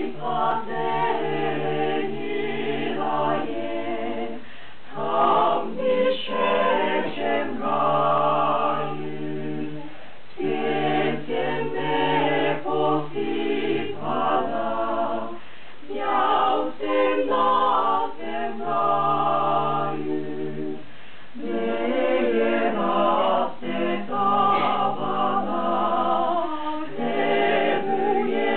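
Small mixed choir of men and women singing a cappella from song sheets, in sustained phrases separated by brief pauses.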